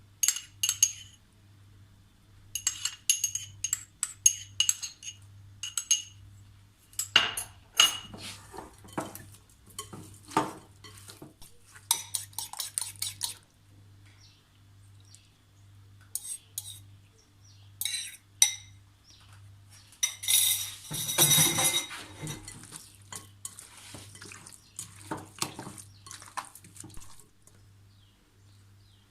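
Metal utensils clinking and scraping against cookware while stirring, in many sharp, ringing clinks at uneven intervals. A louder stretch of rushing, clattering noise comes about 21 seconds in. A faint steady low hum runs underneath.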